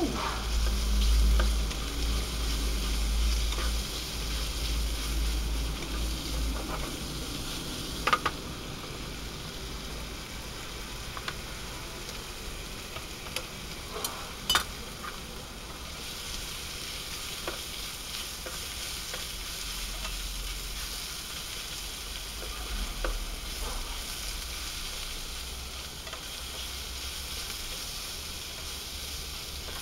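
Sliced kabanos sausage sizzling as it fries in a Trangia frying pan on a portable gas stove, a steady hiss. A few sharp clicks cut in, one about eight seconds in and two close together around fourteen seconds.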